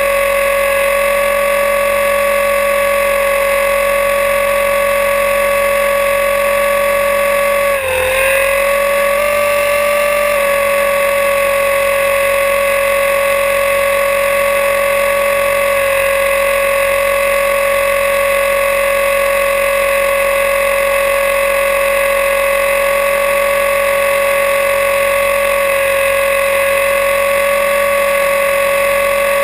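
Align T-Rex 500E electric RC helicopter in flight, heard from a camera mounted on its own landing skid: a steady high whine from the motor, gears and spinning rotor. The pitch dips briefly about eight seconds in, then settles back.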